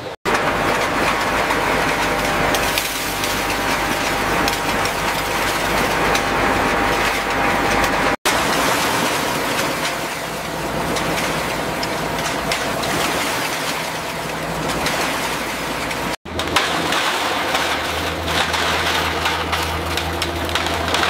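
Scrap-metal shredding and conveyor machinery running: a loud, dense grinding and rattling of metal scrap. It breaks off for an instant about 8 and 16 seconds in, and after the second break a deep steady machine hum joins it.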